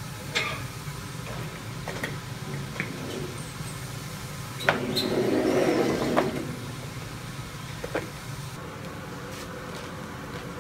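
Screen-printing press at work: scattered clicks and knocks over a steady low hum, and about five seconds in the squeegee carriage sweeps across the screen for about a second and a half, the loudest sound.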